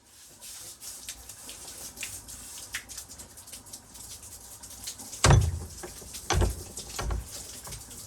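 Water spraying and pattering in a steady hiss, with many small ticks and three heavier thumps about five, six and seven seconds in.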